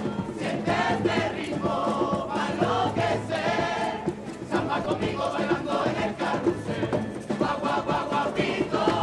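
Large carnival choir of men and women singing together in chorus, with guitar accompaniment and a light rhythmic beat.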